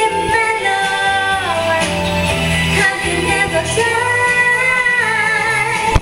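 A woman singing long held notes that glide and waver, over an instrumental accompaniment with a steady bass line.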